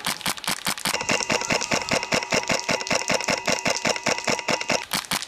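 Polarstar HPA-powered airsoft rifle firing on full auto, a rapid even string of about nine shots a second that never breaks. From about a second in until near the end, a steady ringing hum sits under the shots.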